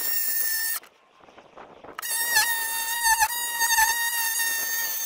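Cordless jigsaw cutting a sheet of 18 mm OSB, its motor whining steadily. It stops just under a second in, starts again about two seconds in, and its pitch dips briefly a few times as the blade loads up in the board.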